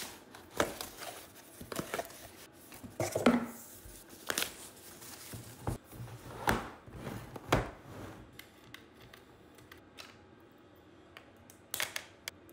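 Cardboard boxes being opened and small plastic-cased batteries taken out and set down on a workbench: scattered rustling, scraping and knocks. It goes quieter after about eight seconds, with a couple of sharp clicks near the end.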